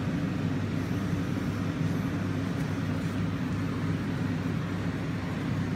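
Steady low machinery hum, unchanging, with no stitching bursts or impacts.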